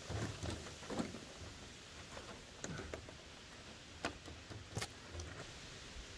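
Gloved hands working half-inch chicken wire into a shallow trench of gravelly dirt: light rustling and scraping of the wire mesh and soil, with a few sharp clicks, the clearest about four and five seconds in.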